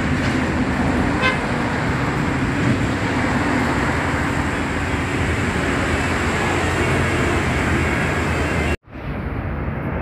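Diesel coach engine running and road traffic noise as a bus pulls away from a toll gate, steady throughout. About nine seconds in the sound drops out abruptly for a moment and comes back changed.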